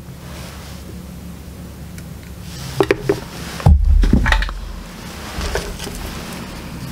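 Handling noises at a soldering bench: a few short clicks of small tools and parts, then a heavy low thump a little before the middle, over a steady low hum.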